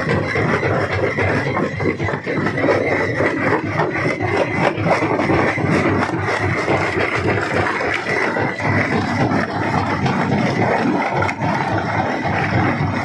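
Rock crusher running under load: a loud, continuous grinding clatter of stone being broken, full of small sharp cracks, with a steady high whine throughout.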